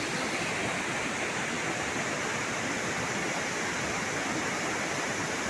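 Waterfall rushing in a steady, even roar.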